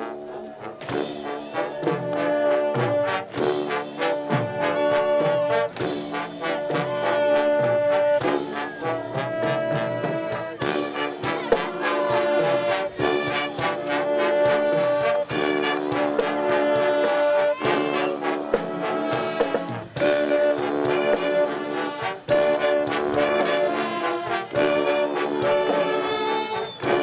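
Pep band playing a brass-heavy tune: loud held brass chords over a steady drum beat.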